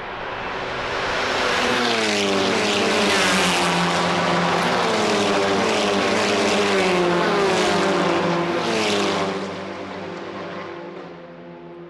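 A TCR touring car's turbocharged four-cylinder engine passing at speed. Its note rises and drops in pitch several times as it goes by, then fades away after about nine seconds.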